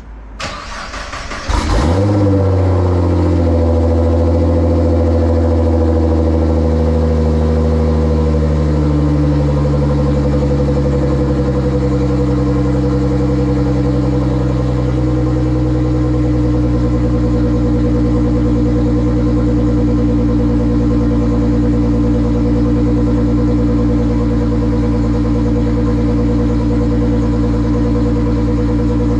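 Nissan R35 GT-R's tuned twin-turbo V6 cold starting: the starter cranks for about a second and a half, the engine catches with a brief rev flare, then settles into a steady cold high idle that eases a little lower over the following several seconds.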